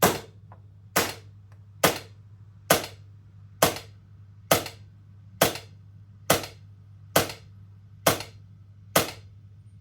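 Polarstar Kythera HPA-engined airsoft rifle firing single shots of 0.3 g BBs through a chronograph at about 85 psi, about eleven sharp cracks a little under one a second, evenly spaced. The string is consistent, around 255 fps, just under a joule.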